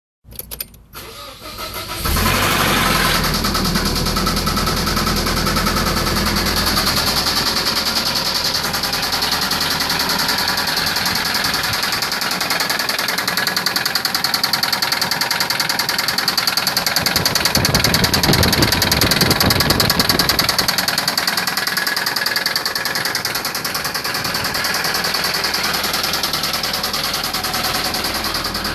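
Nissan 240SX's KA24DE 2.4-litre four-cylinder engine cranking, catching about two seconds in, then running steadily, a little louder for a few seconds past the middle. It carries a mystery noise the owner can't place, which his tags point to as a possible timing chain noise or knock.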